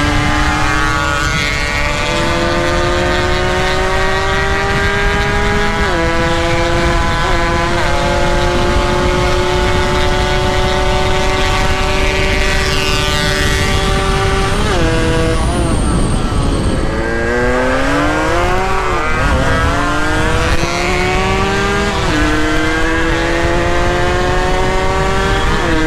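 Motorcycle engine under way. The pitch climbs slowly in each gear and drops abruptly at several gear changes. Around the middle it falls away sharply as the bike slows, then rises again on acceleration.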